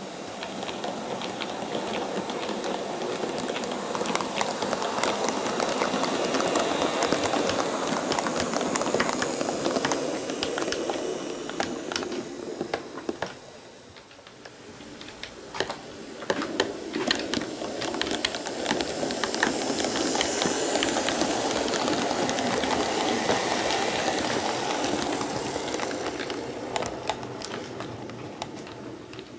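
H0-scale model electric locomotives running over the track and its turnouts: a rumble of motors and wheels with rapid irregular clicking at rail joints and points. It swells and fades twice as trains pass.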